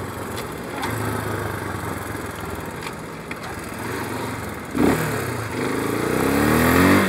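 Motorcycle engine running while riding. About five seconds in it picks up, its pitch climbing steadily toward the end.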